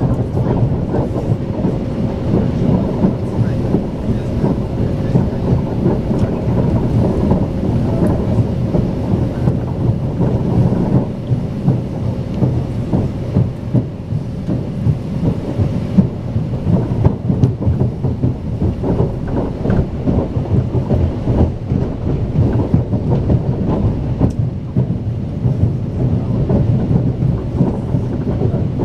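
Strizh Talgo passenger train running at speed, heard from inside the carriage: a steady low rumble of wheels and track, with a faint steady hum through the first part.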